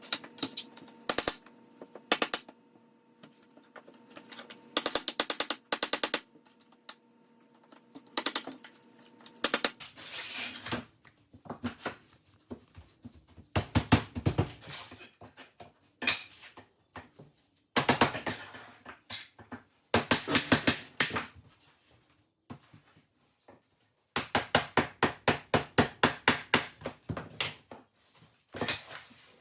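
Laminate floor planks being fitted and knocked into place: runs of sharp taps and knocks, some in quick trains of about eight a second, with a faint steady hum under the first part.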